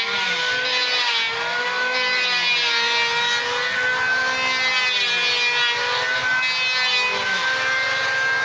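Handheld power tool running steadily as it works a wooden timber, a high motor whine whose pitch dips slightly under load about a second in and again near seven seconds.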